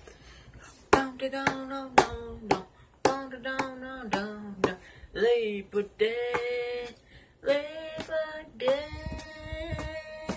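A person singing in long, wavering held notes without clear words, with sharp hand claps or slaps between the phrases.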